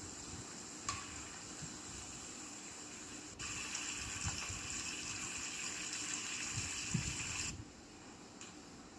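Cooking oil sizzling, heard through a laptop's speaker: a steady sizzle of karipap deep-frying, then from about three and a half seconds in a louder sizzle of the filling cooking in a wok, which cuts off suddenly near the end.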